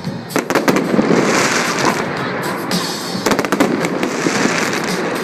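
Fireworks going off: a quick cluster of sharp bangs near the start and another about three seconds in, over continuous crackling, with music playing behind.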